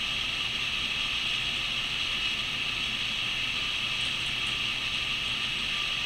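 Steady, even hiss with no clear source, plus a few faint high ticks about four seconds in.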